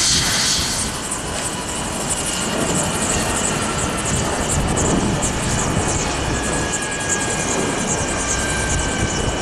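Bell 429 twin-turbine helicopter running on the pad with its rotors turning: a steady turbine whine over a fast, pulsing rotor swish.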